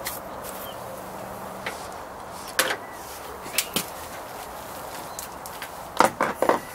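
Hand tools being handled: scattered sharp clicks and knocks, then a quick run of louder clicks near the end, as a small ratchet and 12 mm socket are picked up and fitted together.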